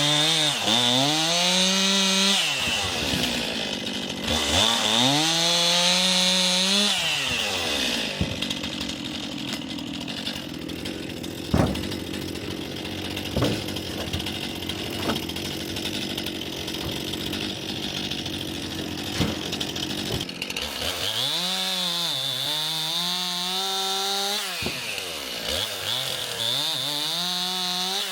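Stihl MS 261 two-stroke chainsaw bucking logs into firewood. It revs up to full throttle for a cut and falls back to idle, in bursts at the start and about five seconds in, idles through the middle, then revs for two more cuts from about 21 seconds in.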